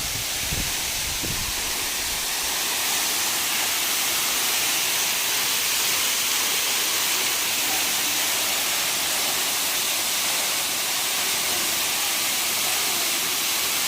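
Waterfall rushing, a steady dense hiss of falling water with a low rumble under it.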